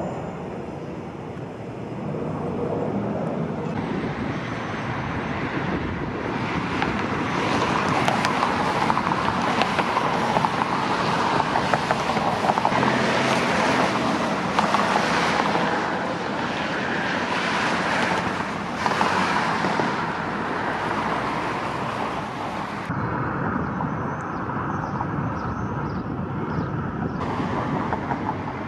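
A rush of passing-vehicle noise that swells over several seconds, is loudest through the middle, and eases off near the end.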